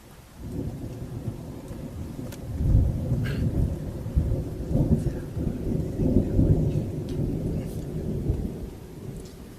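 Thunder rumbling in a long, low roll that starts about half a second in, swells to its loudest around the third second with rolling peaks, and fades out near the end.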